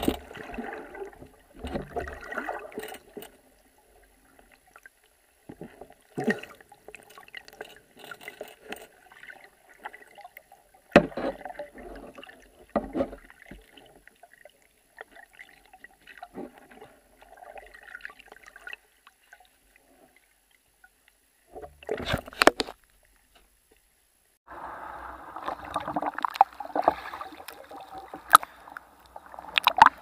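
Water gurgling and sloshing around an underwater camera, coming in irregular bursts with quiet gaps between them. There are a few sharp knocks about two-thirds of the way in and again near the end.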